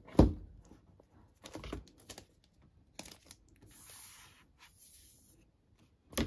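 Handling noises from a new MacBook being unboxed: a sharp knock just after the start, a few light taps, a soft rustling scrape lasting about two seconds midway, and another knock at the end as the laptop is handled and lifted in its cardboard box.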